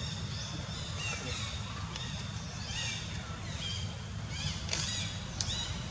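Short, high animal chirps that each fall in pitch, repeating again and again, over a steady low rumble.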